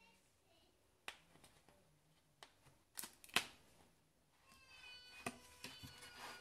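Stiff cardboard pages and flaps of a lift-the-flap board book being handled, with a few sharp taps and clicks; the loudest comes about three seconds in.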